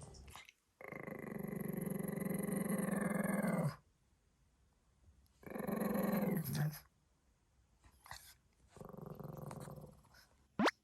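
A Pekingese growling at being stroked, in three separate growls: a long one of about three seconds, then two shorter ones of about a second each, with pauses between them. A brief sharp sound comes near the end.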